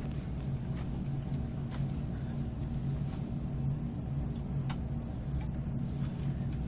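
Steady low hum with a few faint light clicks.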